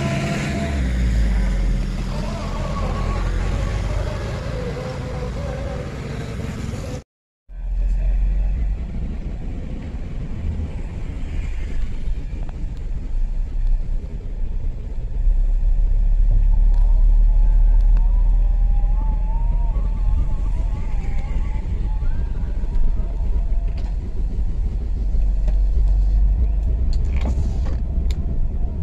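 Road traffic noise of motorcycles and cars on a bridge, with a steady low rumble and engine notes that waver as vehicles pass. The sound drops out abruptly for about half a second some seven seconds in.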